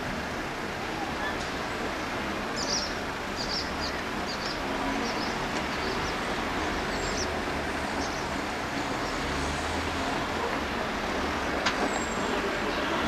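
Steady rushing noise of distant road traffic, with a run of short high chirps in the middle.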